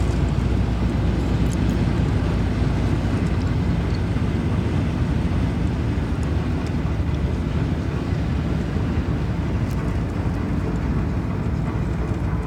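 Steady low rumble of a vehicle driving, engine and tyre noise without a break.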